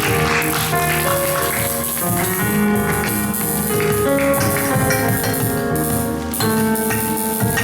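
Live music from a musical's curtain call, loud and continuous, with held notes shifting every second or so.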